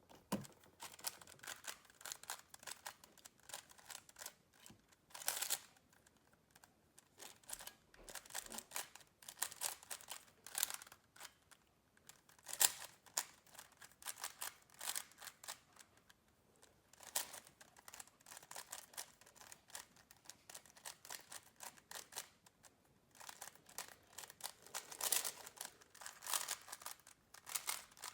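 A 3x3 Rubik's speed cube being turned fast during a speedsolve: rapid plastic clicking and clacking of the layers turning, in flurries with short pauses between runs of moves.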